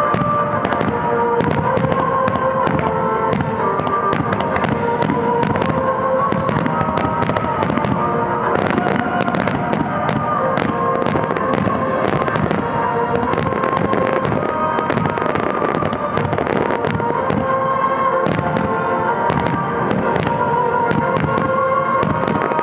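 Aerial firework shells bursting in a rapid, unbroken run of sharp bangs and crackles, over show music with steady held tones.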